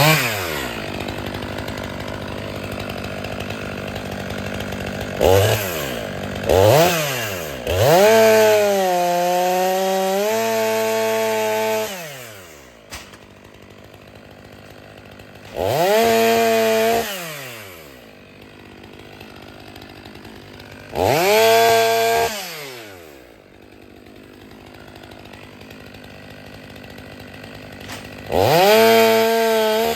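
Stihl 500i two-stroke chainsaw cutting firewood: it idles between cuts and revs to full throttle again and again, with two quick blips, one long cut of about four seconds whose pitch sags under load, and three shorter cuts of a second or two.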